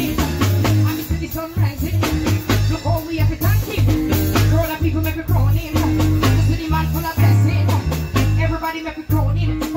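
Live band music: an electric bass guitar plays a loud, up-front line of short repeated low notes over a drum kit beat.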